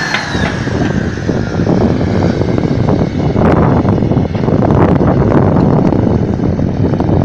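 Tractor diesel engine running hard under load as it drags a disc harrow through wet, heavy soil, with wind buffeting the microphone.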